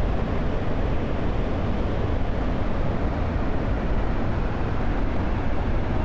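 Steady, unbroken rush of a large waterfall in heavy flow, deepest at the low end.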